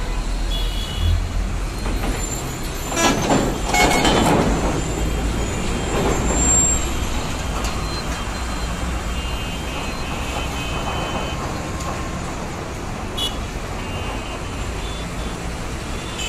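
Heavy road traffic of buses and trucks, engines rumbling steadily, loudest about three to four seconds in as a heavy vehicle passes close. Vehicle horns sound briefly now and then.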